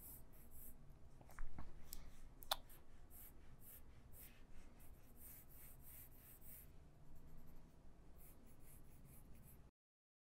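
Faint scratching of a pen drawing a series of short sketch strokes, with a couple of brief taps about one and a half and two and a half seconds in. The sound cuts off abruptly to dead silence near the end.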